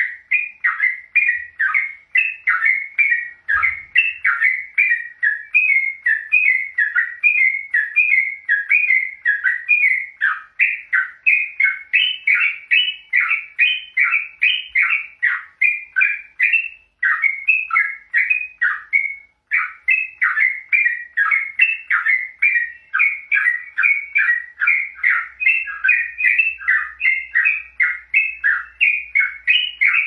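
Yellow-vented bulbul (trucukan) calling in an excited, unbroken run of short chattering notes, about four a second.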